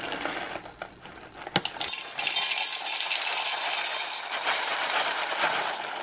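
Whole roasted coffee beans poured into a stainless steel grinder bowl, a dense clatter of beans hitting the metal and each other. It grows louder about two seconds in as the stream of beans fills out, and eases off near the end.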